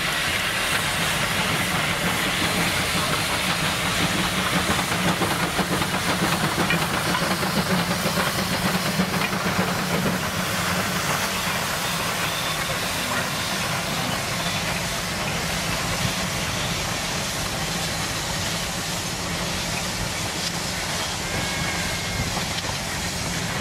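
A 1916 two-truck Heisler geared steam locomotive works past with a steady hiss of steam. It is followed by its train of logging flatcars and open passenger cars rolling along the rails. The sound is loudest in the first ten seconds as the engine goes by, then eases a little as the cars pass.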